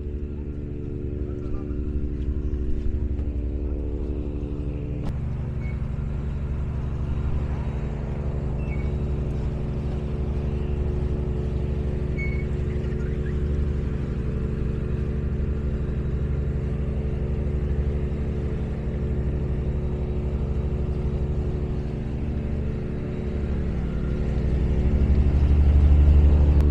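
Tugboat's diesel engine running steadily with a low, even drone and rumble. It grows louder near the end.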